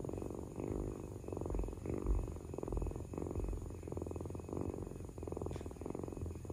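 Ginger tabby kitten purring steadily, a low rapid rumble that swells and eases about twice a second.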